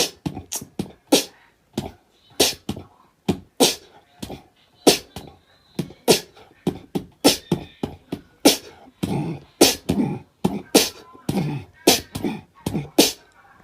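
A run of sharp percussive pops and clicks in an uneven rhythm, about two to three a second, some carrying a short voiced note.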